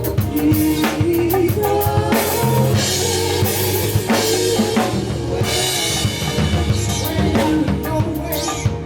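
Band playing live with a full drum kit: kick, snare and cymbal strokes over a held bass line and a melodic instrument, with cymbal wash swelling twice.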